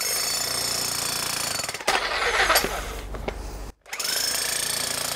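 Full Boar 1500W 32J SDS Max demolition hammer with a clay spade bit, hammering steadily down into soil and a tree root. It stops briefly just before four seconds in, then starts again.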